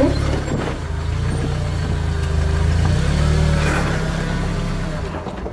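Jeep engine running at low revs as it crawls slowly over rocks, its note wavering a little up and down.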